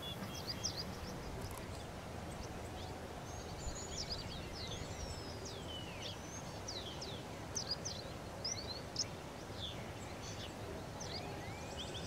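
Small birds calling: many short, quick chirps and sweeping whistled notes, some falling and some rising, over a steady low background rumble.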